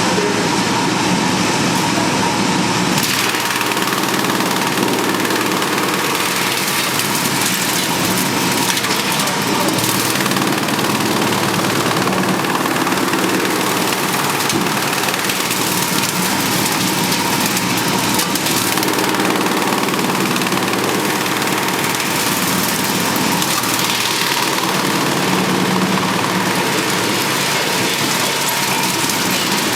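Drum wood chipper running with a loud, steady mechanical noise.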